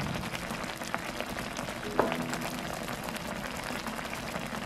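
Curry sauce bubbling at a simmer in a pan, a steady fine crackling and popping, with one sharp knock and a short ring about two seconds in.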